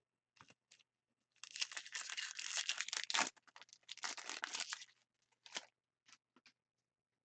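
A hockey card pack's wrapper being torn open in two long stretches of tearing, with a short knock between them, and a few small clicks and rustles of card handling around them.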